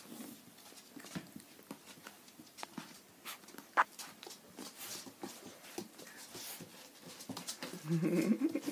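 Golden retriever puppy giving a short, wavering whine or grunt near the end. Before it come scattered light clicks and taps, with one sharper tap a little before the middle.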